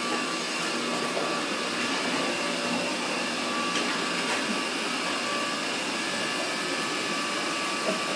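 Steady rushing noise of air-handling machinery, an even sound with faint steady tones running through it.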